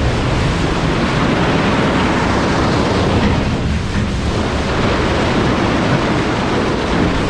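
Two-ram recycling baler running as it bales HDPE plastic milk jugs: a loud, steady mechanical noise with a rough, crackling texture.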